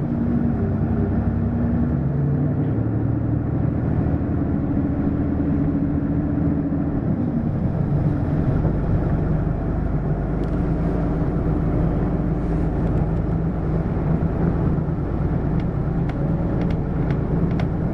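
Hino LKG-KV234N3 city bus heard from inside, running on the road with its diesel engine and road noise. The engine note holds steady, slides down about seven seconds in, then settles into a lower steady note with a deeper rumble. A few light rattles come through in the second half.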